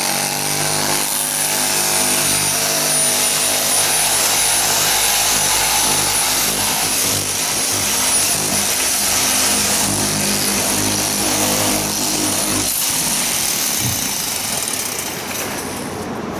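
Power windshield extractor tool with a flat blade running steadily with a high whine as it slices through the urethane sealant holding the windshield in. Its note changes and it eases off about three-quarters of the way through.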